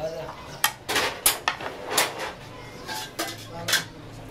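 Metal serving spoon clanking and scraping against large metal cooking pots and a plate while rice and carrots are dished out: a string of sharp clanks, several a second at times, loudest around one to two seconds in.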